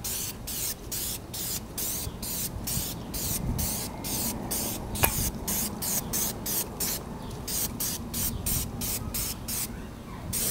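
Aerosol can of air filter oil sprayed onto a dry, cleaned air filter in a rapid series of short hissing bursts, about three a second, with one sharp click about halfway through.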